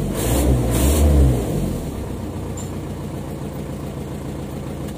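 Isuzu 4D32 four-cylinder diesel engine running, heard from inside the truck's cab. It swells louder for about the first second and a half as it revs, then settles to a steady idle.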